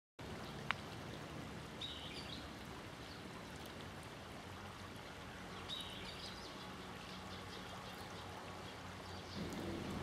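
Steady rush of a small river's flowing water, with short high-pitched calls of a common kingfisher about two seconds in, about six seconds in and again near the end. There is a single sharp click just under a second in.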